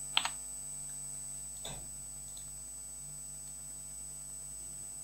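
A quick double click near the start and a softer single click a little under two seconds in, from a computer's keys or buttons being pressed, over a steady electrical mains hum with a faint high-pitched whine.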